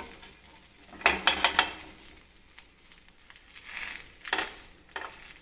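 Wooden spatula scraping and tapping against a nonstick tawa while a crisp masala dosa is folded over on it: a quick run of scrapes about a second in, a shorter one a little before four seconds, and a single tap near the end.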